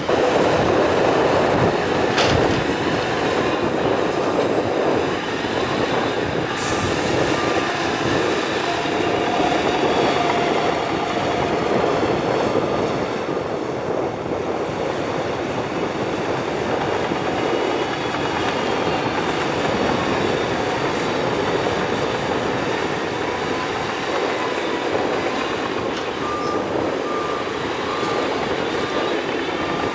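Shantui crawler bulldozer working, its diesel engine running under load and its steel tracks clanking and squealing. A reversing alarm beeps in short evenly spaced pulses twice, about a quarter of the way in and near the end.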